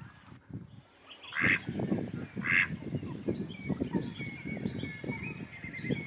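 Waterfowl calling: a dense chatter of short low calls starting about a second and a half in, with two louder higher calls early on it and a thin wavering whistled call over the chatter in the second half.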